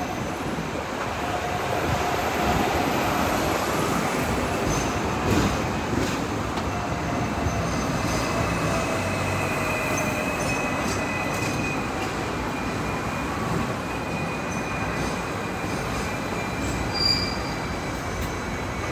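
Hong Kong double-decker electric tram running on street rails, heard from the upper deck: a steady rumble of wheels and running gear with faint high-pitched wheel squeal that slides slightly in pitch, and a few sharp clicks about five to seven seconds in.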